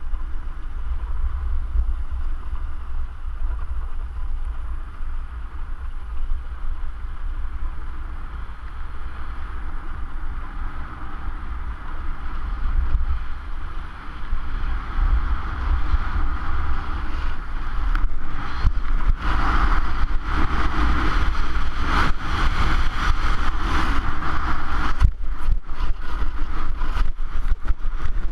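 Wind buffeting an action camera's microphone during a fast downhill ski run, a low steady rumble, over the hiss and scrape of sliding on packed snow. About two-thirds of the way in the hiss grows louder and rougher, broken by many short knocks and clatters.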